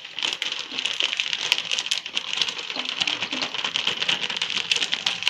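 Thin plastic bag crinkling and rustling with rapid small clicks as powdered sugar is shaken out of it into a steel bowl.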